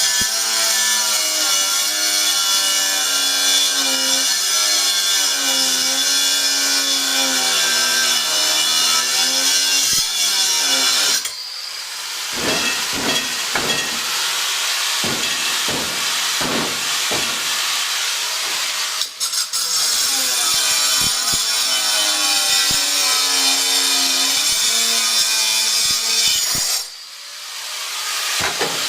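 A refrigerator being dragged across the floor, a long scraping squeal whose pitch wavers. In the middle it breaks into a series of shorter separate scrapes, then the long squeal returns.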